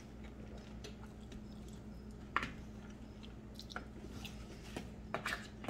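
Quiet chewing of a mouthful of baked potato, with a few faint clicks of a metal fork against the plate, the sharpest about two and a half seconds in.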